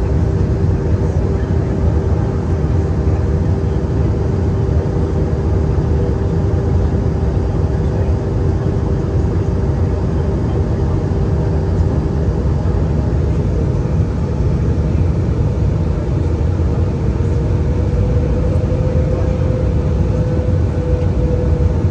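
Airbus A320-200 in flight, heard from the passenger cabin: a steady, loud rumble of airflow and jet engines with a constant engine hum that rises slightly in pitch about two-thirds of the way through.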